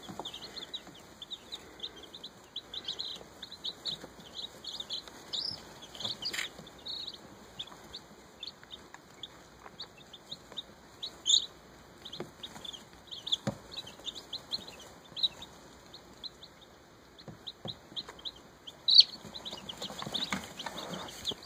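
A brooder full of baby chicks peeping without a break: many short, high cheeps overlapping, with a few louder ones now and then.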